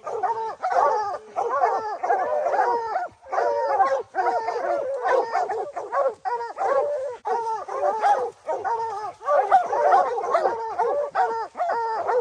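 A pack of bear hounds baying up a tree at a treed bear: many dogs' barks and bawls overlapping with hardly a break.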